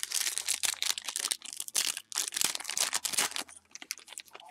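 Foil wrapper of a trading card pack being torn open and crinkled by hand, a dense crackling of foil that eases off about three and a half seconds in.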